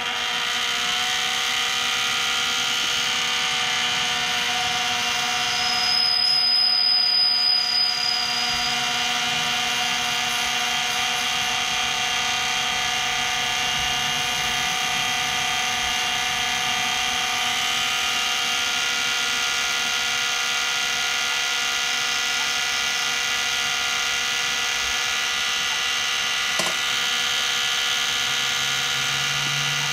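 Benchtop mini lathe running under power while turning a metal part, giving a steady motor-and-gear whine made of several held tones. It gets a little louder about six to eight seconds in.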